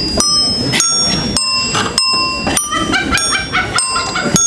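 Bell-like chimes struck about every half second, each note ringing briefly, with a quick run of shorter notes about three seconds in.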